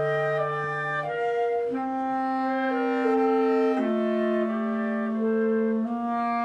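Military wind band playing a slow piece in long, held chords, with woodwinds and brass sounding together and the chords changing every second or two.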